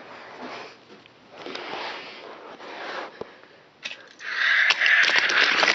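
Rustling, brushing handling noise as a plush toy is moved close against the microphone. It gets much louder about four seconds in, with scattered clicks.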